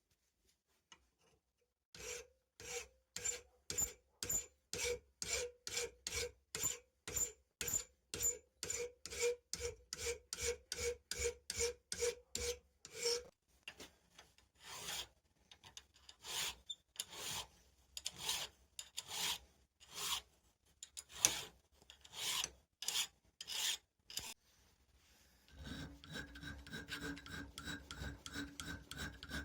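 Steel being worked with a hand file in back-and-forth strokes. The strokes come about two a second and are even at first, with a faint ring from the metal. About halfway through they turn slower and less regular. Near the end a steady hum comes in under them.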